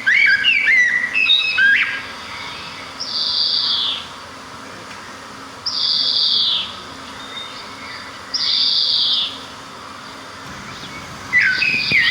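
Songbirds singing: a quick warbling phrase of sliding notes, then three separate falling notes about a second long, evenly spaced, and the warbling phrase starts again near the end.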